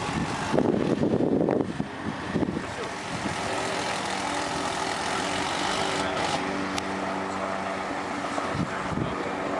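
Steady machine hum with several steady tones, which sets in about three seconds in over a constant outdoor background noise; a louder rush of noise comes in the first two seconds.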